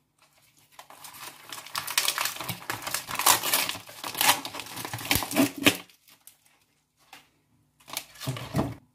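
Clear plastic film and tray of a pack of raw chicken fillets crinkling and tearing as the pack is opened, for about five seconds. A short, duller bump follows near the end.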